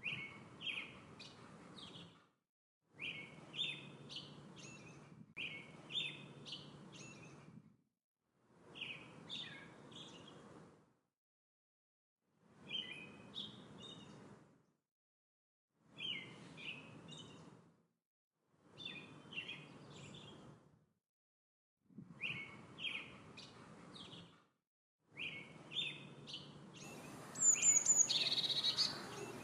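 Songbird singing short chirping phrases, each about two seconds long, over faint outdoor background noise. The phrases come roughly every three seconds with dead silence between, as if one recording is looped. Near the end a louder, higher-pitched call comes in over a noisier background.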